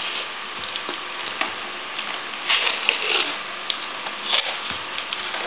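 Wide adhesive tape being pulled off its roll and wrapped by hand around a PVC pipe fitting: a steady crackling hiss as it peels, with a few louder rustles and light handling knocks.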